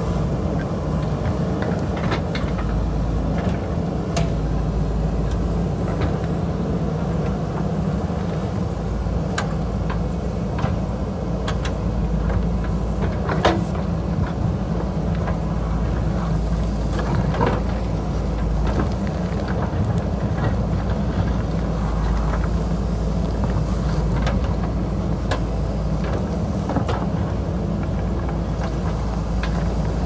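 JCB 3DX backhoe loader's diesel engine running steadily as the rear bucket digs into rocky soil, with scattered knocks and scrapes of the bucket on stones; one knock about halfway through is loudest.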